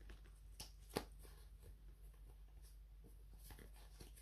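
Near silence: faint room tone with a low hum and a few soft clicks. One sharper tap comes about a second in.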